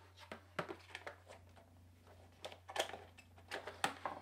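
Metal spoon scraping and tapping as ice cream is scooped from a plastic tub into a glass jug: a run of light, irregular scrapes and clicks, with the sharpest knocks toward the end as the tub's plastic lid is handled.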